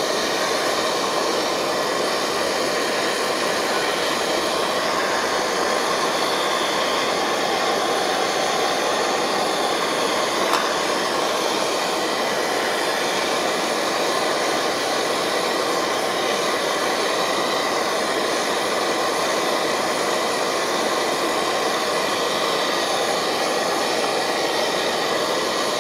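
MSR Dragonfly white-gas stove burner running at full flame with a loud, steady roar that holds even throughout, heating a pot of water close to the boil.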